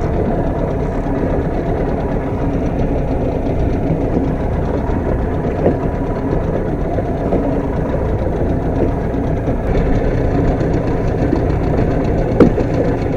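Boat engine running steadily while trolling, with a sharp knock about twelve seconds in.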